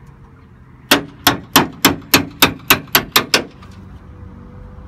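About ten sharp metal clangs in quick succession, roughly four a second, each with a short ring: the steel tailgate latch of a farm tipping trailer being banged by hand.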